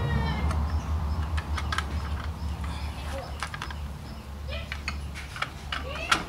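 Clicks and taps of the white plastic parts of a suspended cat water dispenser being handled and fitted together, over a steady low hum. A few short rising calls cut in, the loudest near the end.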